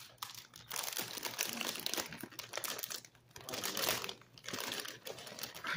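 Crinkly plastic snack bag of tortilla chips rustling and crinkling as a hand rummages inside it, in several bouts with short pauses between them.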